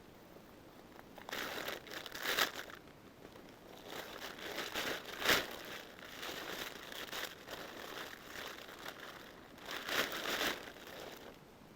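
Crinkling and rustling in irregular bursts. The sharpest is a short crackle about five seconds in, and a longer burst comes near ten seconds.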